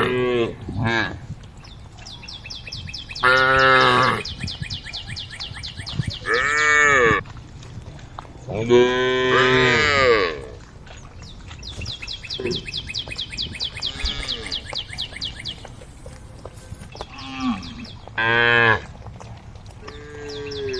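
Cows mooing, about six separate calls from the herd, some long and level, others rising and then falling in pitch.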